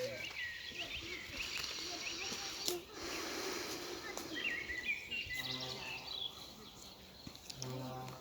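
Outdoor ambience of small birds chirping over a steady background hiss, with two brief low hums in the second half.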